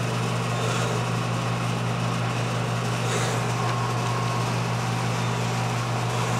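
Steady low machine hum with a constant pitch, unchanging throughout.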